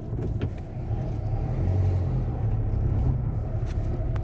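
Inside the cabin of a Renault Kangoo 2 driving over a rough road: a steady low engine and road rumble with a few light clicks. There are no door squeaks or rattles, since the doors' worn hinges have been replaced.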